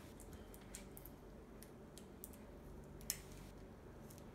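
Faint, scattered light clicks and taps from small objects being handled, with one sharper click about three seconds in.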